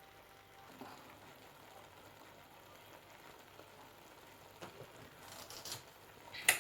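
Quiet room tone with faint handling noise, then a few light clicks and one sharp knock near the end as kitchen prep begins.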